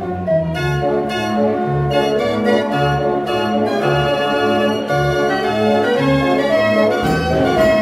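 Dutch street organ (draaiorgel) playing a tune: a melody and chords over a steady, regularly pulsing bass.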